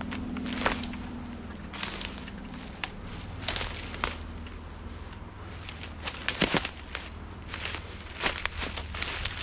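Footsteps pushing through dense brush, with dry twigs and leaf litter crackling and snapping underfoot at irregular intervals. A cluster of louder snaps comes about six seconds in.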